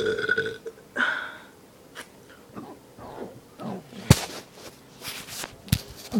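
A man's long, steady burp ending about half a second in, then a short burp. After that come a string of short, quieter burps and a few sharp throat clicks, the loudest about four seconds in.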